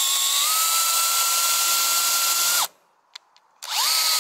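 Power drill boring holes through a pressure-treated wooden wall plate for concrete anchor bolts. Its whine runs at a steady pitch, steps up slightly about half a second in, and stops about two and a half seconds in. A second short burst starts near the end, the whine rising as it spins up.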